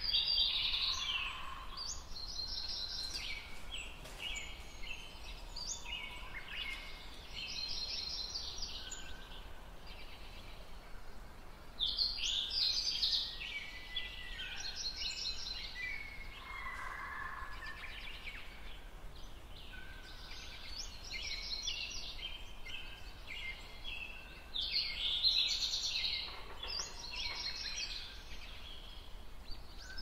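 Songbirds chirping and trilling steadily, several calls overlapping, with a louder bout of song about every twelve seconds.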